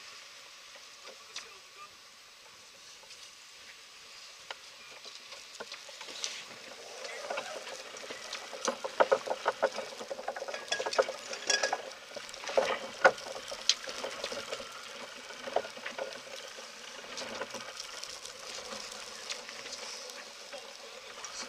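Steady hissing rush of water and wind around a sailing yacht under way in rough sea. About seven to fourteen seconds in, short knocks and muffled voices come through the rush.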